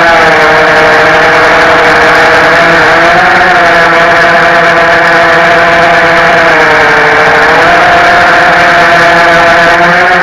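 Racing quadcopter's DYS Samguk 2300KV brushless motors and propellers whining loudly, heard close up from the drone's onboard camera. The pitch shifts with throttle, rising briefly about three seconds in and dipping around seven seconds before climbing back.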